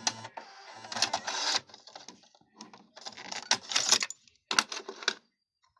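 Soft-touch, motor-driven cassette mechanism of a Pioneer KEH-P4530R car radio working: a series of clicks and short motor whirs with brief pauses between them, dying away near the end.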